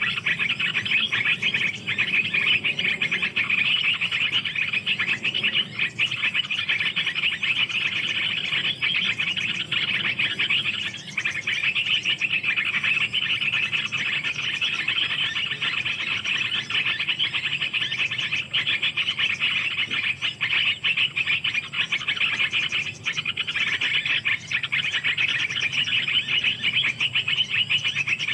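A steady, shrill chorus of calling insects and frogs with a fast, fine pulsing. It dips briefly a couple of times.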